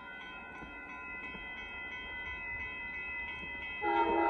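Railroad crossing bell ringing steadily. Near the end, the approaching Amtrak passenger train's locomotive horn sounds a loud chord of several notes.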